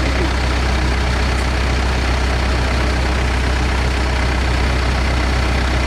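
Case 580 backhoe loader's diesel engine running steadily, a deep, even drone with no revving.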